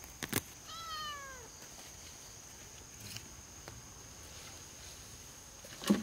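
An animal's single pitched cry that falls in pitch and lasts under a second, near the start. Sharp knocks come just before it, and a louder knock comes near the end.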